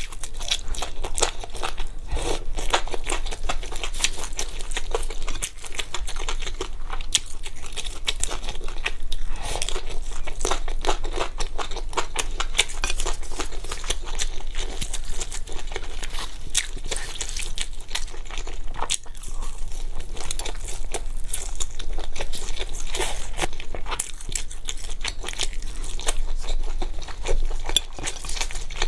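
Close-miked eating: biting and chewing crisp fried skewered food with spicy noodles, a dense run of small crunches and crackles.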